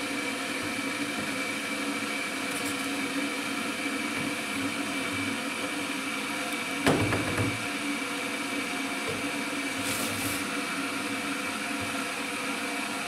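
Steady electric hum of a running kitchen appliance, a low drone with a constant high whine over it. A single knock about seven seconds in.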